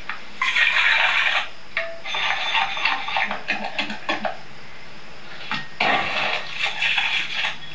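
Utensils scraping and stirring in a cooking pot, heard through a TV speaker, in three stretches of a second or so each with scattered clicks between them.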